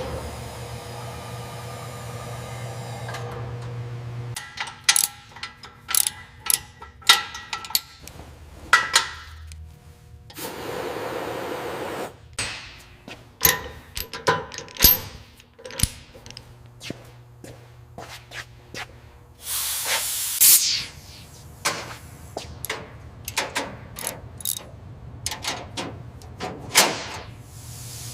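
Workshop work sounds: a run of sharp clicks, taps and knocks, with a hiss like spraying about ten seconds in and again near twenty seconds, over a low steady hum.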